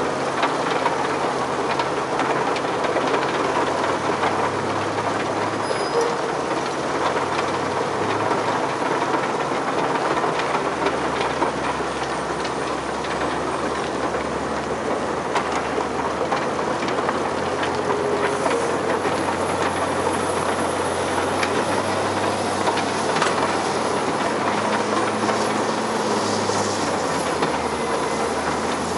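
Extec S-5 mobile screening plant running as it sieves soil: a steady, dense rattling of the vibrating screen over its diesel engine's hum, with a Cat 950H wheel loader's diesel engine working in the mix.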